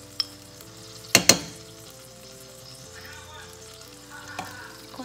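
Minced garlic sizzling in hot oil in a frying pan, with two sharp knocks about a second in.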